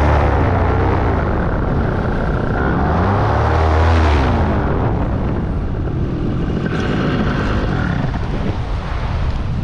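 Paramotor engine and propeller running with a strong low drone, its pitch falling and then swelling up and back down as the throttle is worked. About halfway through, the engine note fades under rough wind noise on the microphone as the pilot comes down low over the beach to land in gusty wind.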